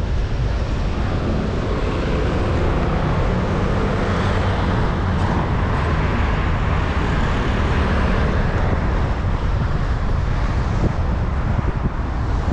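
Steady low wind rumble on the microphone from riding a bicycle, mixed with the noise of street traffic.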